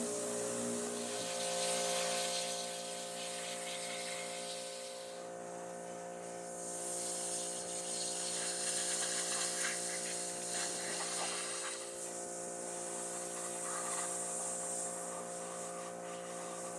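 Pressure washer running: a steady motor hum under the hiss of the water jet blasting caked grime off an engine. The hiss swells and fades as the jet is moved over the engine.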